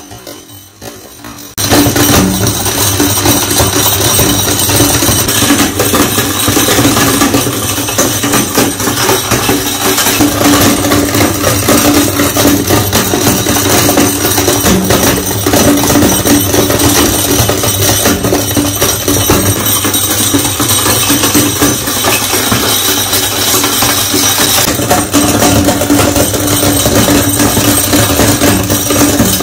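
Electric meat grinder crushing glass marbles: a loud, dense clatter and cracking over the motor's steady hum, starting suddenly about a second and a half in.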